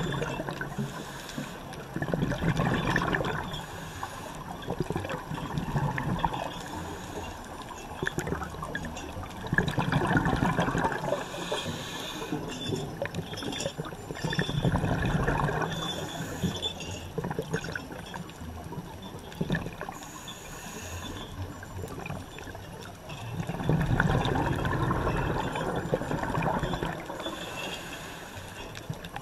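Scuba divers' exhaled regulator bubbles gurgling underwater, in swells every few seconds as breaths are let out, with a quieter stretch of several seconds past the middle.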